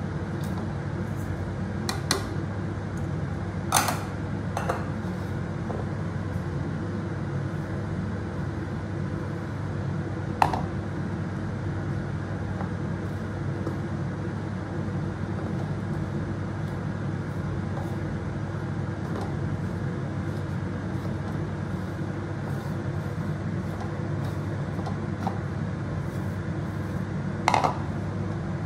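A steady low mechanical hum, with a few sharp knocks of ceramic bowls while spices are tipped in and the gram-flour pakora mix is worked by hand in a ceramic bowl, including a double knock near the end.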